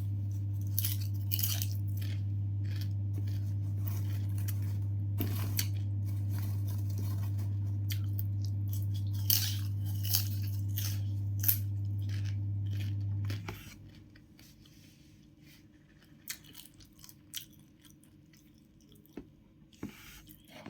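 Close-up crunchy chewing of snack food, short crisp crunches every second or so. Under it runs a steady low hum that cuts off suddenly about two-thirds of the way through.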